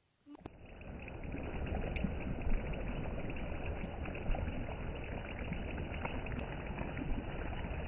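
Chicken pieces in a watery gravy bubbling in a kadhai, just after a cup of water was added: a steady simmering hiss with scattered small pops, starting about half a second in.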